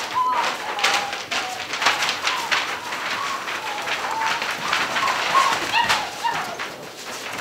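Five-week-old Gordon Setter puppies giving short squeaky whines, each rising and falling, in clusters near the start and again around the middle. Under them comes a constant quick scuffling and clicking of paws on the paper-covered floor as they play.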